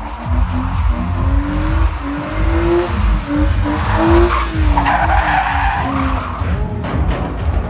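Drift car's engine revving up and down repeatedly while its tyres squeal and skid through a slide.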